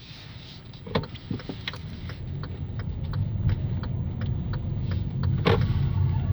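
Front suspension of a Hyundai Elantra AD creaking and clicking as the steering wheel is turned, a sound like metal rubbing on metal; the loudest creak comes about five and a half seconds in. Under it a low vehicle rumble grows louder.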